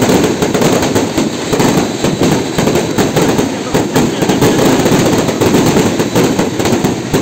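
Fireworks and firecrackers going off in a rapid, continuous string of sharp cracks and bangs.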